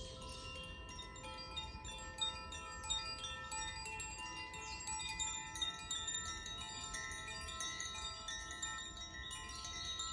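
Koshi and Zaphir chimes being swung, their rods striking irregularly several times a second so the ringing tones overlap into a continuous cluster of bell-like notes.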